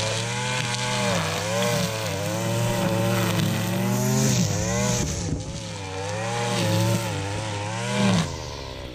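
Gas string trimmer running hard, cutting thick grass and weeds, its engine pitch rising and falling as the throttle is worked. Near the end the throttle is let off and the engine drops away.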